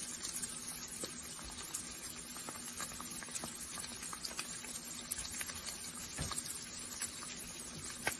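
Faint crackling hiss with many scattered small clicks, over a low steady hum.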